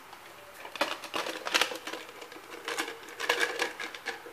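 Hands rummaging among small hard objects for a cotton swab: irregular light clicks and rattles.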